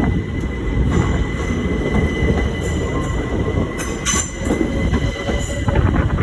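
Passenger train running on the rails with a steady heavy rumble and a thin steady whine. A brief high-pitched wheel squeal comes about four seconds in.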